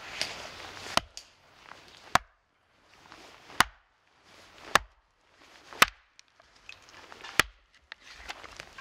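Axe striking a knotty log of firewood: six sharp chops a little over a second apart, working around a knot in wood that won't split well.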